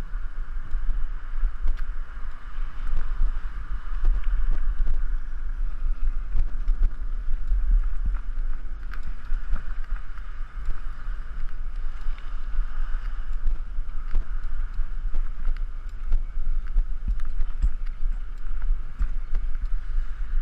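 Riding noise picked up by a bike-mounted GoPro: a steady low wind rumble on the microphone with a constant hiss of rolling noise, and scattered small knocks and rattles as the bike and mount jolt over bumps.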